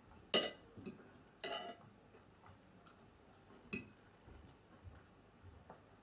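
Knife and fork clinking and scraping against a dinner plate while cutting food. A sharp clink about a third of a second in, a short scrape at about one and a half seconds, another clink near four seconds, then a few faint ticks.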